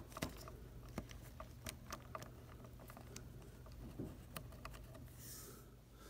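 Faint scattered ticks and clicks of fingers handling a bundle of cut wires and their plastic sheath at a refrigerator door hinge, over a low steady hum.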